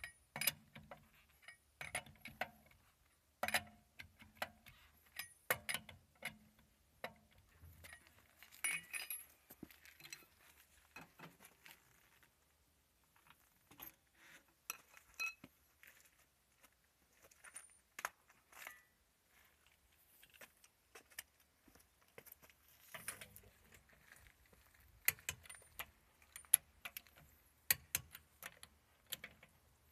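Faint metal clinking and rattling of a cross-shaped lug wrench spinning lug nuts onto an alloy wheel, a run of sharp clinks that thins out partway through. Near the end, sharp metallic clicks come as the nuts are tightened with a torque wrench.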